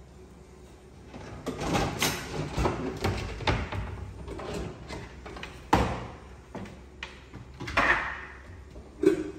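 Kitchen handling noises: a run of knocks and clicks as lower cupboard doors or drawers are opened and shut and a cooking pot is handled on the hob, with one sharp knock about halfway through and a short scrape near the end.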